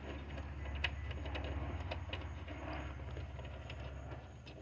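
Faint light clicks and scraping of a small screw and ground-wire ring terminal being turned by fingers, over a steady low background rumble.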